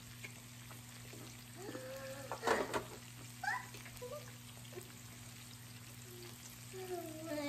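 Pork and mushrooms sizzling faintly on the nonstick plate of an electric raclette grill, under a steady low hum. A single sharp click sounds about two and a half seconds in.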